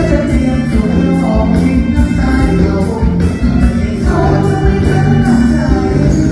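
Band music with a steady beat and a singing voice.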